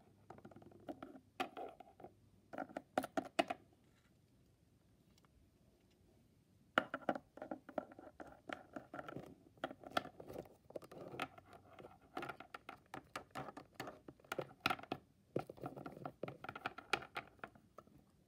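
Plastic toy pet figurines being handled and set down on a wooden tabletop: light taps, clicks and scrapes. There is a short flurry about a second in, a quiet gap of a few seconds, then a longer busy stretch of handling.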